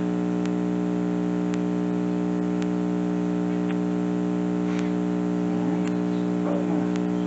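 A steady electrical hum made of several stacked pitches, the loudest thing throughout, with a faint tick about once a second.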